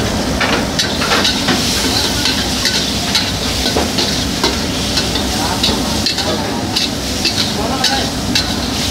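Prawns sizzling in hot oil in a wok, a steady frying hiss, with repeated sharp clicks and scrapes from a metal ladle stirring them against the wok.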